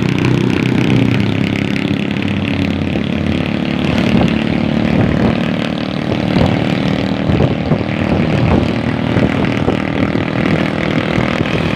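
Motorcycle engine running at a steady cruise while riding along a road, with wind and road noise.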